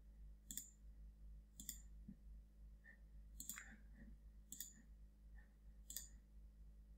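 Faint single computer mouse clicks, five of them spaced about a second apart, over a faint steady low hum.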